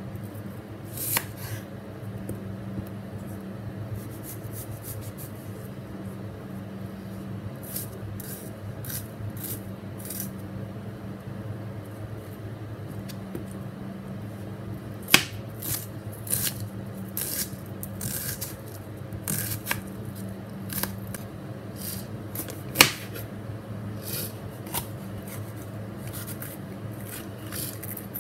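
Kitchen knife cutting a red onion and a green bell pepper on a wooden cutting board: irregular taps and scrapes of the blade on the board, with two sharper knocks, over a steady low hum.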